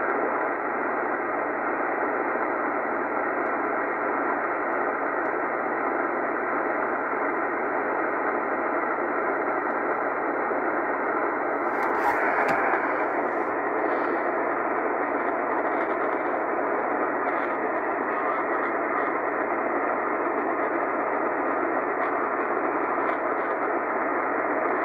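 Tecsun PL-880 shortwave receiver's speaker playing steady static while tuned in lower sideband on the 80-metre band, the hiss cut off sharply above the voice range. A brief knock from the radio being handled about halfway through.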